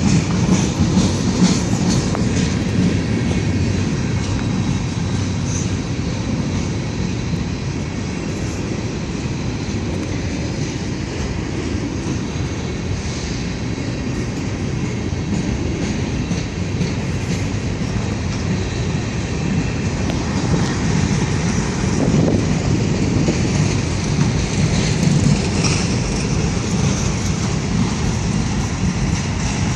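Freight train rolling past: a steady rumble of wheels on rail with clickety-clack over the joints, and faint high wheel squeals now and then in the second half.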